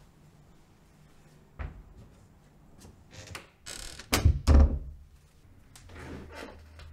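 Interior door being opened with its metal lever handle: two loud sharp thuds of the latch and door, a little past midway, with a softer thump earlier and some rustling around them.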